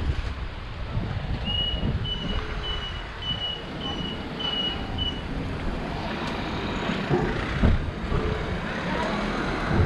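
Wind rumbling on the microphone of a moving bicycle, with six short, high electronic beeps in an even rhythm a little under two a second, and a single thump later on.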